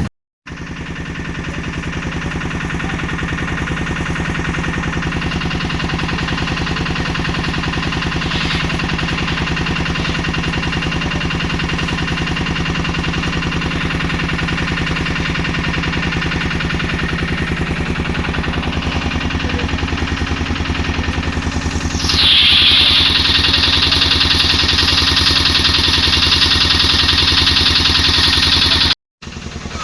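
Pressure washer pump running steadily with a low, rapidly pulsing hum. About two-thirds of the way through, a loud hissing water jet starts spraying.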